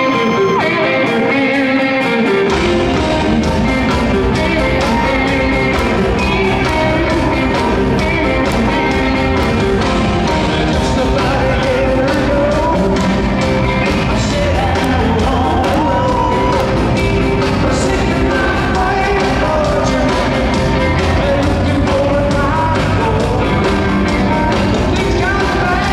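Live rock band playing in an arena, led by electric guitars, with bass and drums coming in about two and a half seconds in.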